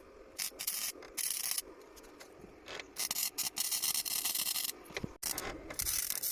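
MIG (semi-automatic) welder laying tack welds on a chair's steel leg: short bursts of arc crackle, with a longer burst of about two seconds in the middle.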